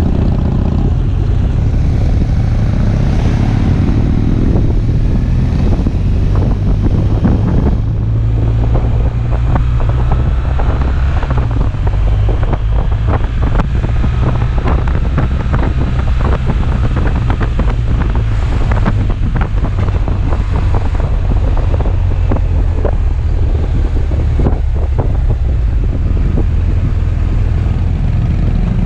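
An engine running steadily with low rumble, under heavy wind noise on the microphone, with many small knocks and clicks throughout.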